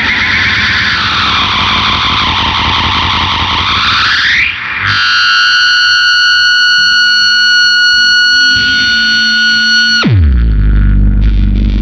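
Electric guitar (Gibson SG) through Big Muff fuzz and MXR Analog Delay, making spacey effect sounds. At first it gives swooping, arching repeats that rise and fall in pitch. About five seconds in comes a held high note with sustain, which dives steeply down in pitch near the end into a low distorted drone.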